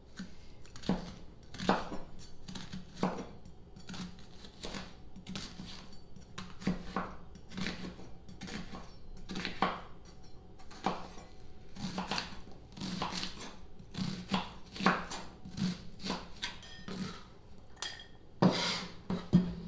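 Kitchen knife chopping an onion on a wooden cutting board: the blade knocks the board in short, irregular strokes. Near the end comes a louder, longer scrape as the chopped onion is swept into a glass bowl.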